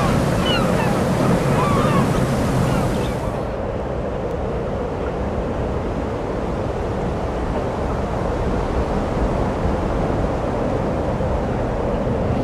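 Sea waves and wind, a steady rushing wash. The brightest part of it drops away about three and a half seconds in, leaving a duller rush.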